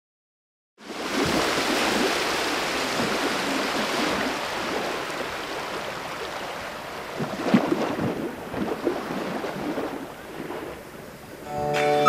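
Sea waves washing, fading in from silence about a second in and slowly dying away, with a few louder splashes in the middle. Music comes in just before the end.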